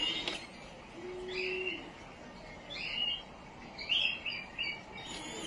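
Birds chirping in short high calls every second or so, with one held low note about a second in.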